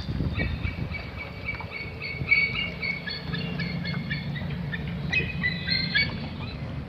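Bird calls: many short high notes at a few fixed pitches, overlapping and thickest in the middle, over a steady low rumble.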